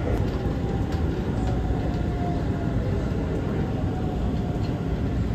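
Taoyuan Airport MRT train running, heard from inside the carriage: a steady low rumble with a faint whine.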